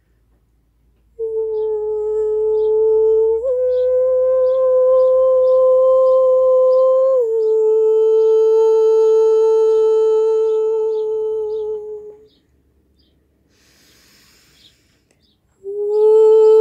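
A woman humming a slow, wordless chant in long held notes. A note starts about a second in, steps up a little, drops back and fades out. After a breath, a new note begins near the end.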